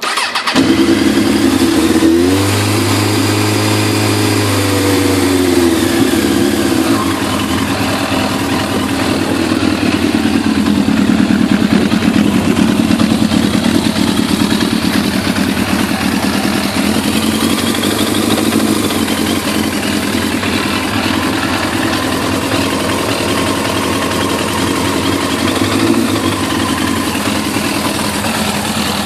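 Suzuki GSX-R1100 WP's liquid-cooled inline-four, breathing through a full Yoshimura exhaust, is started on the button and catches at once. About two seconds in the revs rise and fall once, then it settles into a steady idle.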